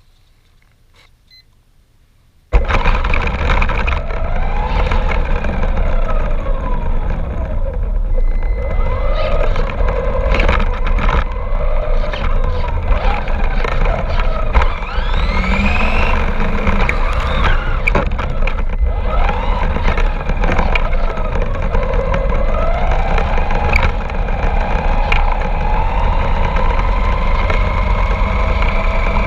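Radio-controlled car's motor running, heard up close from a camera riding on it: its whine rises and falls again and again with speed over a steady low rumble, with scattered knocks from bumps. The sound starts suddenly about two and a half seconds in.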